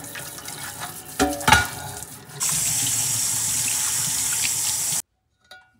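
Kitchen tap water splashing onto a copper pan in a stainless steel sink while it is rubbed and rinsed, with two sharp knocks about a second in. From about halfway the water runs in a steady, loud rush, then cuts off suddenly near the end.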